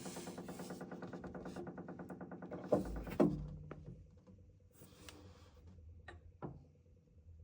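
Water supply pipes making a steady, rapid pulsing hum, like a motor running, caused by a faulty Delta shower pressure-balance valve cartridge. Two loud thumps come about three seconds in, after which the hum stops; a few faint clicks follow.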